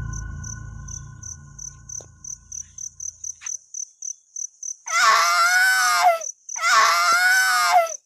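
A cricket trills steadily in high pulses, about three a second. A low music drone fades out over the first few seconds. Then, about five seconds in, come two loud, drawn-out wailing cries in quick succession, their pitch wavering.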